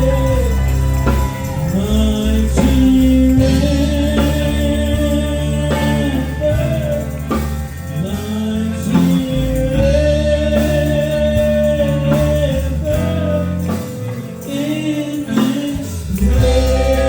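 Gospel praise music with singing: long held, gliding vocal notes over a steady instrumental accompaniment.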